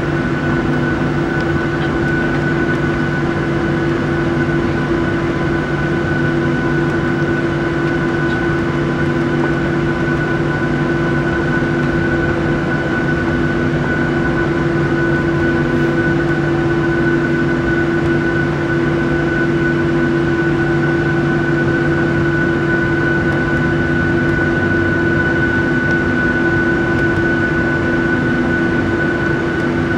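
Jet airliner's engines running at taxi power, heard inside the cabin as a steady hum with a high whine that does not rise or fall.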